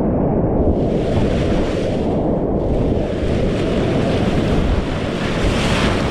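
Loud, steady rush of big whitewater churning around a kayak, heard from a camera right at water level. It gets brighter and hissier near the end as spray and waves wash over the microphone.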